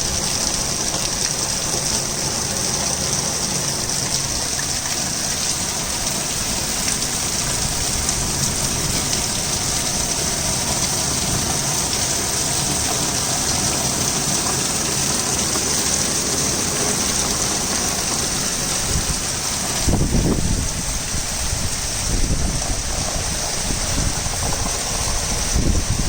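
Torrential rain pouring down in a steady, loud hiss. About twenty seconds in, uneven low rumbling joins it.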